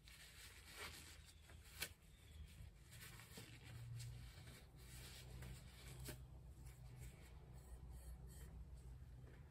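Faint scrubbing and rubbing as the bore of a 1968 Mustang brake master cylinder is cleaned out before honing, with a few light clicks and knocks, the sharpest about two seconds in.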